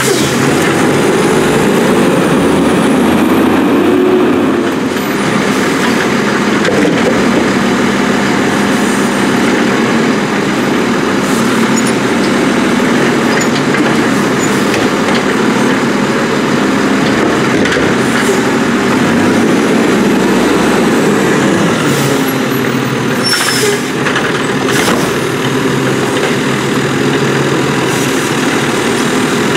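Condor refuse truck's engine running steadily while its McNeilus Autoreach automated side arm grabs, lifts and dumps wheeled garbage carts. A few short clanks and hisses come in the last quarter.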